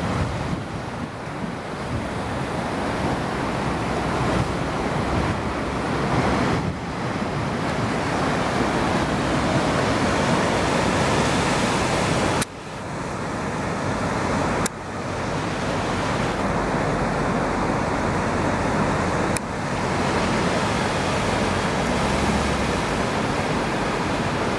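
Atlantic surf breaking over a rocky shore: a loud, continuous wash of waves with wind on the microphone. It drops off abruptly three times in the second half and builds back up each time.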